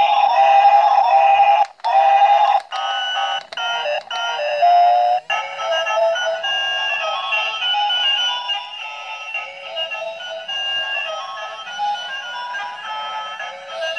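A toy bubble gun's electronic tune played through its tiny built-in speaker: thin and tinny with no bass. It starts and stops several times in the first five seconds, then plays on without a break.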